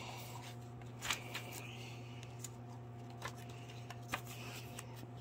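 Paper pages of a handmade junk journal being handled and turned: a few short, soft rustles and taps over a low steady hum.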